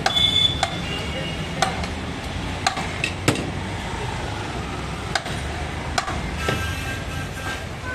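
Butcher's cleaver chopping beef on a wooden log chopping block: about eight sharp chops at irregular intervals, roughly one a second, over a steady low background hum.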